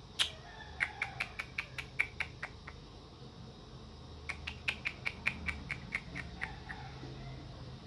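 An animal's call of rapid, sharp chirping clicks, about six a second, in two runs of roughly two seconds each, with a short high squeak just before the first run.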